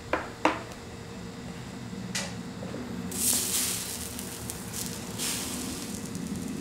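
Food sizzling on a hot teppanyaki griddle in two hissing bursts, after two sharp clinks of metal utensils near the start and another about two seconds in.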